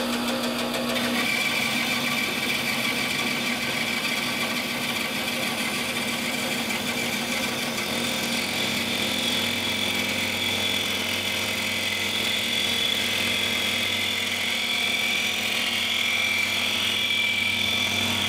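Bandsaw running steadily with its blade ripping a thin strip off a purpleheart board as the board is fed past it on a sliding jig.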